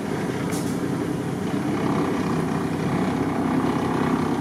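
Off-road vehicle's engine running steadily at low speed, growing slightly louder over a few seconds.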